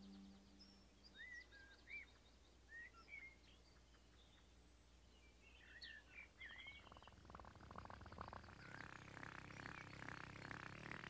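Faint birdsong: scattered short chirps and whistles. From about two-thirds of the way in, a rapid ticking rattle grows steadily louder as the voice trumpet begins rising out of the flower bed.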